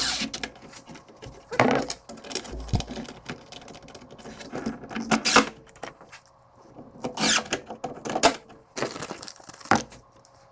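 Irregular clicks, knocks and clatter of a cordless drill, driver bits and metal cabinet hardware being handled.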